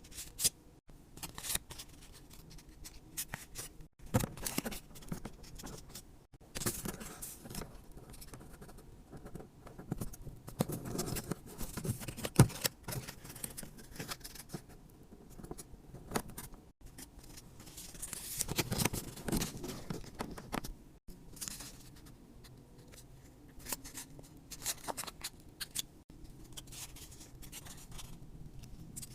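Scissors snipping and cutting in irregular runs of short strokes, with quieter handling between.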